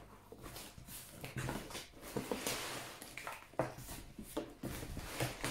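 Rustling and light knocks of a large cardboard box and its packing as dolls are handled inside it, a quick irregular run of crinkles and taps.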